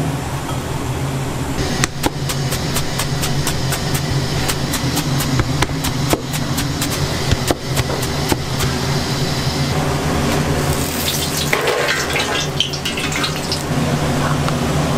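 A kitchen knife chopping on a cutting board: a run of sharp knocks, about three a second. A few seconds later, water runs briefly, all over a steady fan hum.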